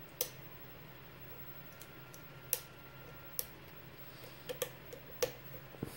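Lock pick working the pins of a pin-tumbler lock during single-pin picking: a few sharp, irregular clicks, two of them close together, over a faint steady low hum.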